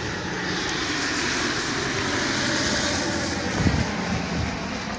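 Heavy rain falling in a steady hiss, swelling for a couple of seconds near the middle.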